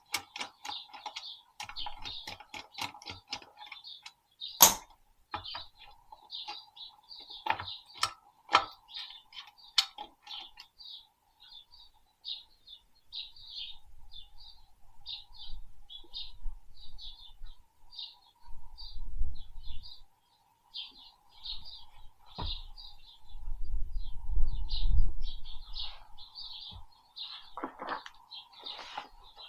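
Small birds chirping in rapid, repeated short notes, with a string of sharp clicks and knocks during the first part and a couple of low rumbles later.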